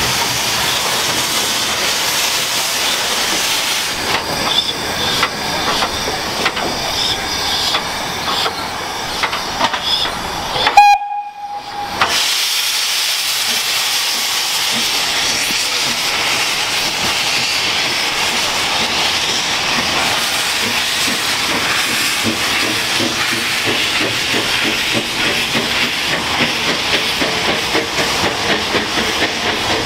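Small steam tank engine hissing steam, then giving one short whistle blast about eleven seconds in, the loudest sound. In the second half it moves off, with a rhythmic beat growing stronger.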